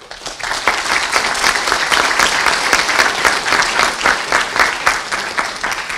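Audience applauding, swelling in over the first half-second and then clapping steadily.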